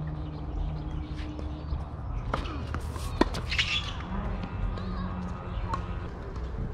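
Tennis ball struck and bouncing on a hard court during a rally: a couple of sharp knocks, the loudest about three seconds in. A short high chirp follows, over a steady low rumble.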